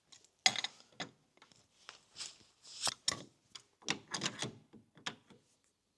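Locking pliers working round the thin sheet-metal cap of a driveshaft slip-yoke seal, pulling it up over the shoulder: a string of irregular light metal clicks and short scrapes that stops about five seconds in.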